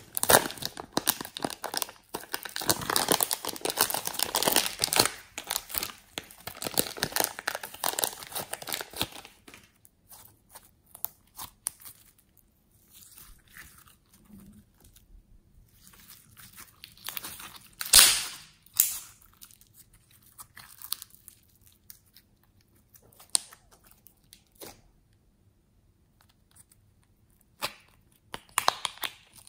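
Slime being peeled off a crinkly clear plastic piping bag: a dense crackle of plastic and sticky slime for about the first nine seconds. After that the slime is squeezed and pressed by hand, with scattered sticky clicks and pops, one sharp loud pop about 18 seconds in and a few more near the end.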